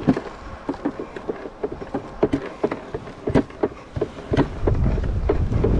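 Footsteps on a sandy beach, about two or three steps a second, with wind buffeting the microphone from about four seconds in.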